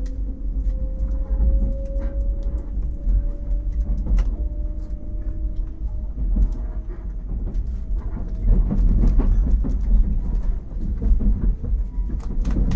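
Interior running noise of a JR 189-series DC electric train, heard inside a motor car: the traction motors' whine rises slowly in pitch as the train gathers speed, then stops about eight seconds in. After that a rougher rumble of wheels on track with scattered clicks and rattles takes over.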